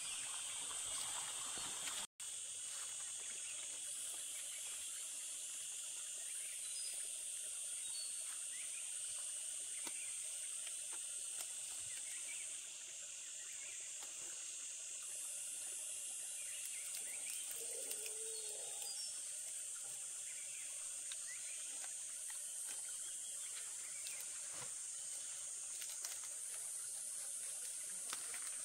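Steady high-pitched insect chorus that swells and eases every few seconds, with faint scattered clicks and one short faint call near the middle; the sound cuts out for an instant about two seconds in.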